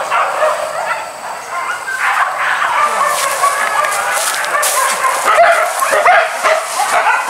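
A pack of hunting dogs yelping and barking, many high-pitched calls overlapping, growing denser after the first couple of seconds.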